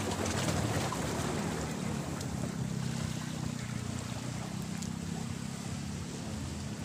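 Steady low wind rumble on the microphone over the faint wash of calm sea water against the rocks.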